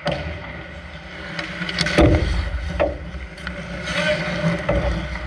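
Ice hockey play on a rink: scraping skate noise with sharp clacks and knocks of sticks and puck several times, and a loud heavy thud about two seconds in.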